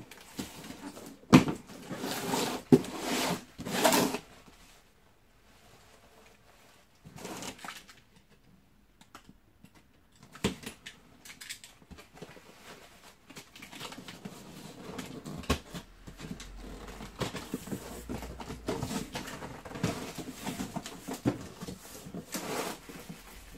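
Cardboard box and packaging being opened and handled by hand: scattered knocks, taps, scrapes and rustles, with a quiet few seconds about five seconds in.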